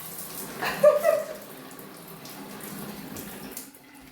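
Water spraying from a newly installed dual rainfall shower head and hand shower, with a brief louder sound about a second in; the spray grows quieter near the end.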